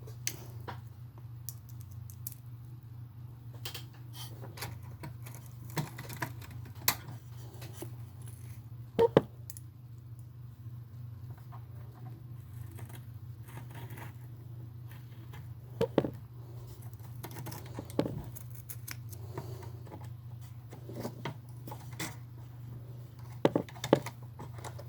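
Scattered light clicks, taps and scrapes of small plastic and metal parts of a toy RC truck being handled and pushed into place, over a steady low hum. The sharpest clicks come about nine seconds in, again around sixteen seconds, and in a quick cluster near the end.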